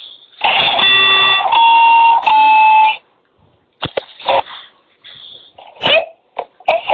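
Electronic tones from a sound-field speaker: three steady notes in a row, then scattered clicks, bumps and short bursts of noise.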